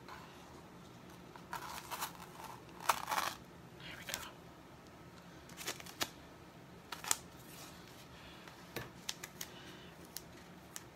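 Sticky plastic Chalk Couture transfer sheet being peeled off a board and handled: faint, scattered crinkles and rustles, with several quick sharp ticks near the end.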